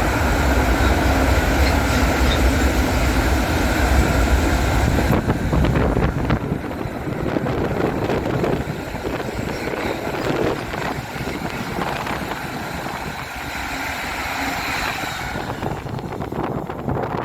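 A train passing close by on the track: a loud, deep rumble that eases about five seconds in, then a run of wheel clicks and rattling over the rails that fades near the end.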